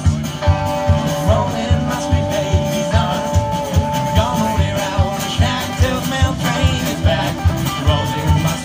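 Live band playing through a PA: strummed acoustic guitar and electric guitar over a steady drum beat, in a country-rock style.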